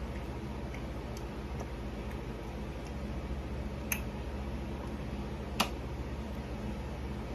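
A metal fork clicking against a dish while twirling noodles: two sharp clicks about four and five and a half seconds in, with a few fainter ticks, over a steady low hum.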